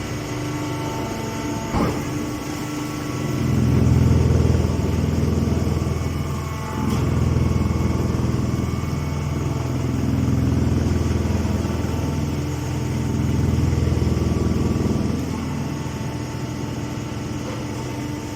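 Grass silage baler-wrapper machine running: a steady mechanical hum with a low rumble that swells louder four times, each for about two seconds, and a single click about two seconds in.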